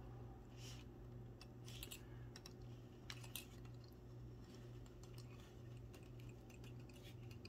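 Near silence: a faint steady hum with a few light clicks and taps of a hard plastic crankbait being turned on its clear acrylic display stand.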